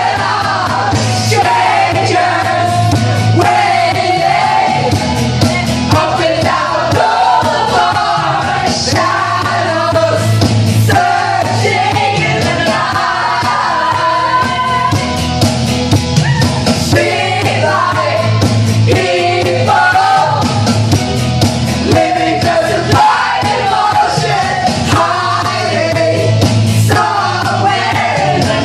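Loud music with a strong bass, with a group of people singing and yelling along.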